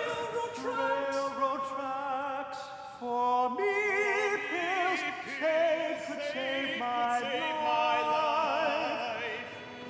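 Two men singing an operatic duet, held notes with a wavering vibrato.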